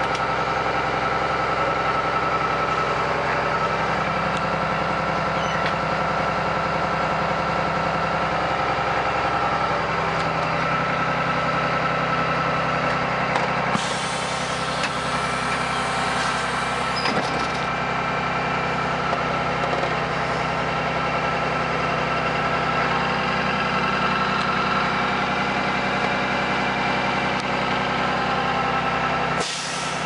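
Cummins ISB 6.7-litre straight-six turbo diesel of a 2013 Blue Bird Vision school bus idling steadily, heard from inside the cab. About fourteen seconds in, a hiss of air lasts a few seconds.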